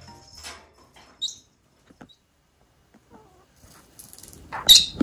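Pet parakeets calling: one short high chirp about a second in, then a loud burst of sharp chatter near the end.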